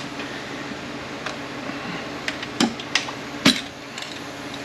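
About five sharp metallic clicks and knocks as a spring-loaded servo is worked out of its bore in a Ford 4F50N automatic transmission case, the loudest about three and a half seconds in, over a steady background hum.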